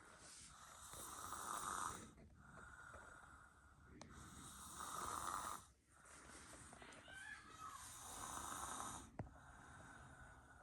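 Soft snoring in deep sleep: three slow breaths, one every three to four seconds, each swelling and fading. There is a single faint click near the end.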